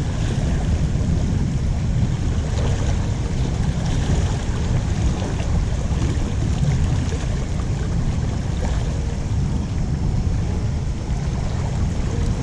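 Wind buffeting the microphone: a steady, loud, fluttering low rumble with a fainter hiss above it.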